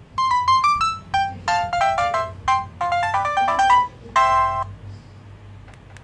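Preset ringtone playing on a K-Touch B2020 feature phone: a quick electronic melody of short notes, stopping about four and a half seconds in.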